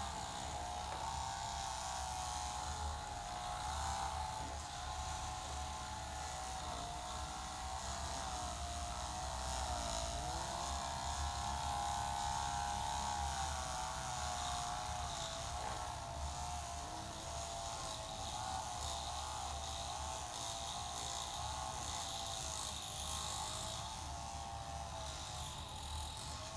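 A sustained tone that wavers slowly up and down in pitch, over a steady low hum.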